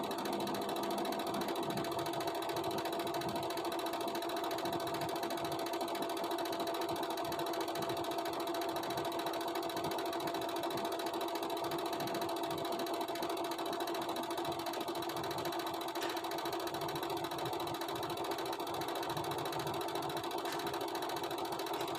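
IFB Executive MSS 9014 front-loading washing machine running with heavy noise: a steady whine over a fast, continuous low rattle, noise the owner treats as a fault.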